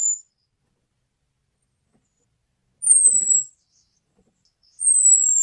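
Orange-headed thrush calls: thin, very high whistles, each about a second long and falling slightly in pitch, repeated every two to three seconds. One tails off at the start, one comes about three seconds in, and one begins near the end. It is the 'cuitan' call used to lure male orange-headed thrushes.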